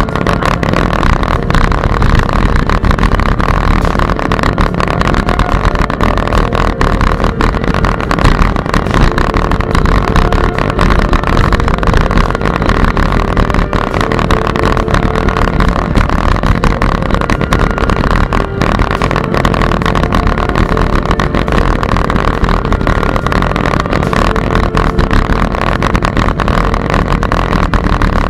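Steady wind and road rumble from riding a bicycle on a paved path, with wind buffeting the microphone and a constant hiss.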